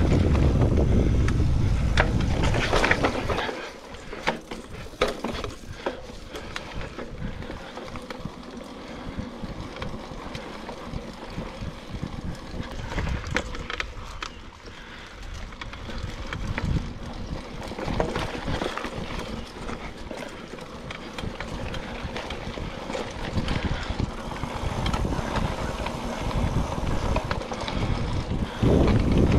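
Mountain bike riding over a dirt singletrack trail, with frequent clicks and rattles from the tyres and bike over the ground. Wind rushes loudly over the microphone for the first few seconds and comes back right at the end.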